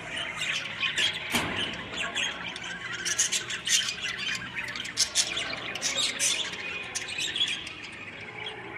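Many caged pet birds chirping and squawking at once: a constant, dense chatter of short, sharp, overlapping calls.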